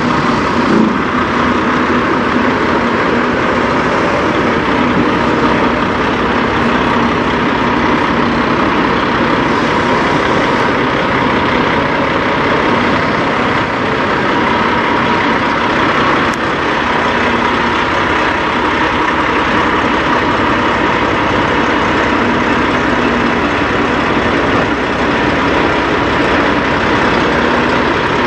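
Diesel engine of a Peterbilt semi truck idling steadily.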